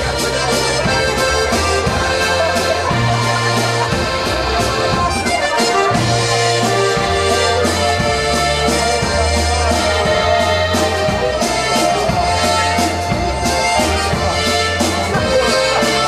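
A button box (diatonic button accordion) and a piano accordion playing a waltz together, over low bass notes and a steady beat.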